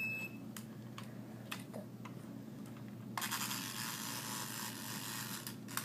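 Faint clicks and scratches of plastic toy pieces being handled, then a steady hiss that starts about three seconds in and stops after about two and a half seconds.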